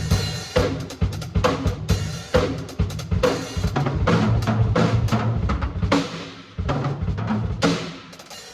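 Drum kit played during a sound check: kick drum, snare and cymbal hits in quick succession, easing into a brief lull near the end.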